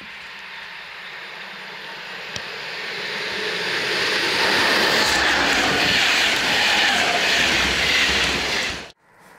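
ČD class 362 electric locomotive hauling a passenger train, running in on the track and coming past close by. Its running and rail noise grows steadily louder to a peak, then cuts off suddenly near the end.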